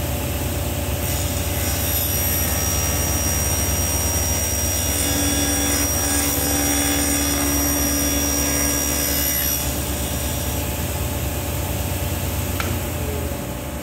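Delta cabinet table saw running as a padauk and walnut board is fed along the fence, the blade trimming a thin strip off the edge to square it. The saw's steady hum runs under a higher cutting sound that fades after the cut. Near the end the hum stops as the saw is switched off.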